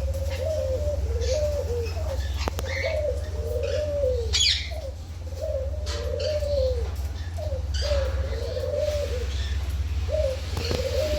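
Aviary birds calling: a low, wavering call repeats about once a second, with higher chirps in between and a sharper call about four seconds in.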